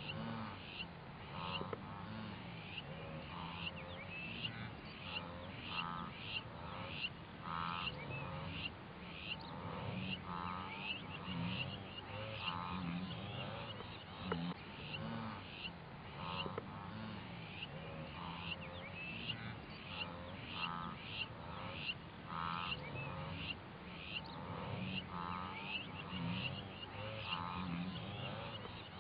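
A herd of wildebeest calling: a constant, overlapping chorus of nasal, honking grunts, many animals at once.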